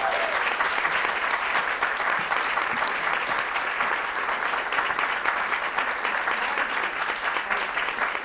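Audience applauding steadily, welcoming a speaker who has just been introduced.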